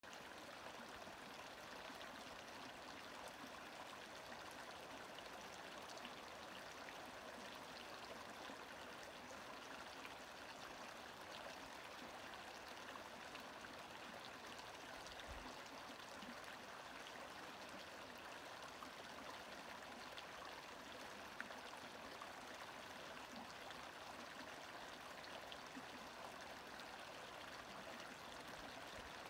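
Small shallow forest creek flowing steadily over rocks, a faint, even rush of water.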